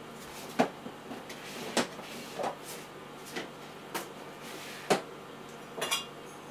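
A series of light knocks and clicks from kitchen items being handled, about one a second, each short and sharp.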